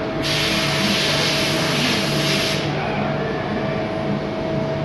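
A burst of compressed-air hiss lasting about two and a half seconds, starting just after the start, over a steady machine hum with a constant whining tone.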